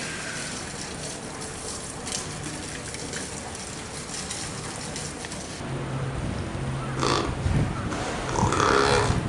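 An animal giving short, low calls about seven seconds in and again near the end, over a steady noise.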